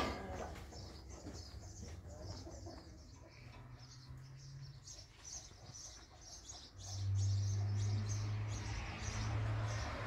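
Small birds chirping over and over in the background. A low steady hum comes in about seven seconds in and becomes the loudest sound.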